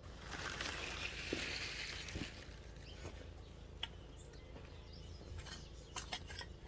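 Rustling of leafy plants and soil as a plant is pulled up from the ground, loudest in the first couple of seconds, followed by a few light snaps and clicks near the end.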